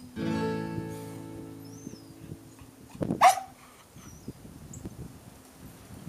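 The end of a song fades out over the first second or so. About three seconds in, a dog gives one sharp bark, the loudest sound here.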